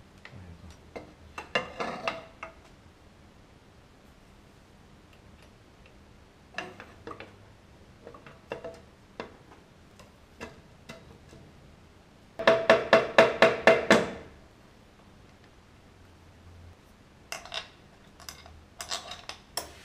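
Hand tools and metal parts clinking and clicking against a Honda Cub engine's clutch cover as it is fitted back on. About two-thirds of the way through comes a quick run of about eight sharp clicks in a second and a half, the loudest sound here, with scattered lighter clinks before and after.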